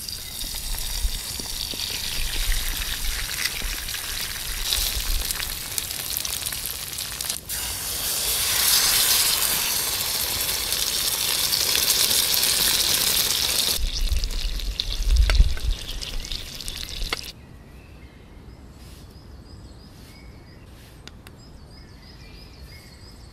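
Egg and sausages sizzling in a metal pan over a campfire, the sizzle growing louder as baked beans are poured in from a can. About seventeen seconds in it drops to a quiet outdoor background with faint repeated chirps.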